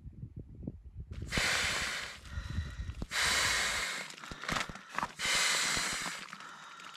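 A person inflating an inflatable sleeping pad by mouth: three long breaths blown hard into the valve, about two seconds apart, with low rustling of the pad fabric at the start.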